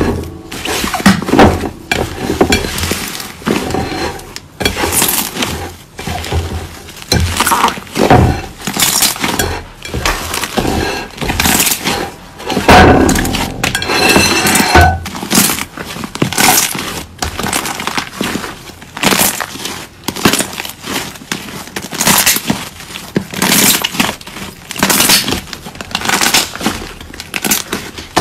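Thick slime squeezed, folded and pressed by hand, giving short crackling, popping squelches about once a second as air pockets burst.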